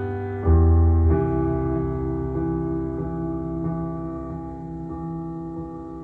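A song's piano interlude played back through Dali Helicon hi-fi speakers driven by a Unison Research amplifier, heard in the room. A chord is struck about half a second in, then the held notes slowly fade.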